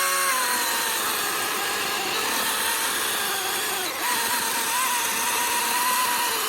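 Milwaukee M18 cordless chainsaw cutting through a log: the electric motor's steady whine dips slightly in pitch as the chain bites into the wood, over the hiss of the chain chewing through it, getting a little louder about four seconds in.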